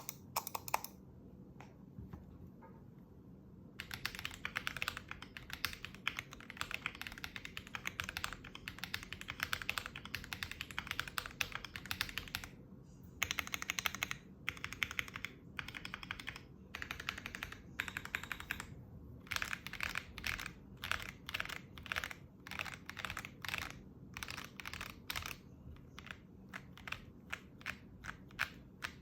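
Stock Akko ACR Pro Alice Plus gasket-mount mechanical keyboard with Akko CS Crystal switches and ASA keycaps being typed on. A few keystrokes and a pause are followed by fast continuous typing, with short breaks. Later come slower, separate keystrokes.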